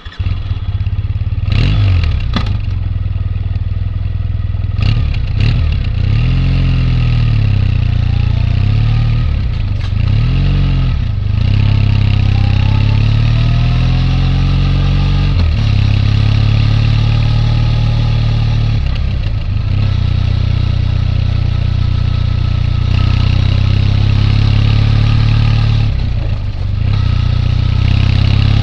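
Triumph Bonneville T214's air-cooled 360-degree-crank vertical twin running just after starting, blipped sharply several times in the first few seconds, with a few swells in engine speed, then running evenly.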